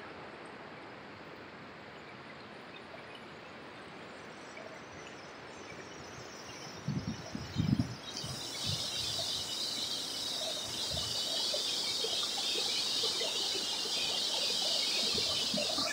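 Rain-swollen water rushing as a steady hiss that comes up suddenly about halfway through and keeps growing louder, after a few low thumps.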